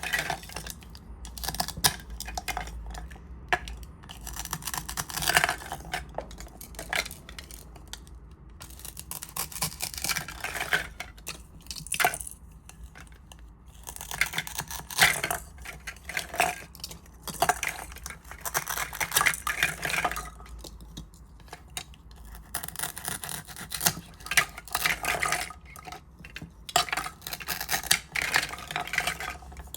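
Close-up scratching, rustling and tapping of small objects in irregular clusters, with sharp clicks scattered throughout.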